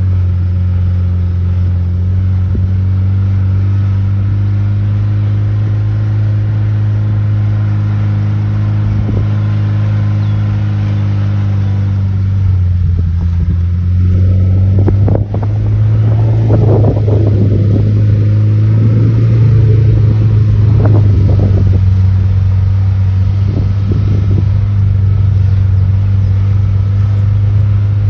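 Suzuki Sidekick engine running steadily under load while towing a converted horse-drawn sickle bar mower through hay. About halfway through, the engine note sags, there is a sharp knock, and the note rises again, with a few seconds of irregular rattling and clattering.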